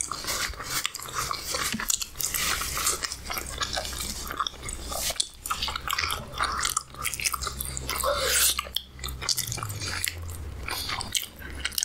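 Close-miked mukbang eating sounds: a person biting and chewing food in irregular, clicky mouthfuls, with a steady low hum underneath.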